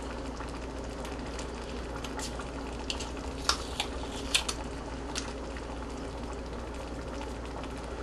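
Spaghetti bolognese sauce simmering in a pan: a steady bubbling with a few sharp pops, the loudest about three and a half and four and a half seconds in.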